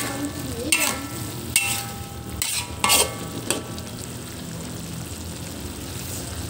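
Metal spatula scraping and knocking against a metal wok while stirring shredded chayote, the wok ringing briefly at each knock, about six knocks in the first three and a half seconds. After that only a steady sizzle of the chayote cooking in its liquid.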